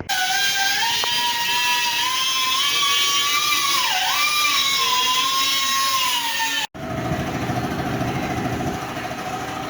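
Honda car engine running with a high whine over it that wavers in pitch and dips briefly about four seconds in. It runs on a freshly fitted replacement alternator. After a sudden break about two-thirds of the way through, it carries on at a steady idle.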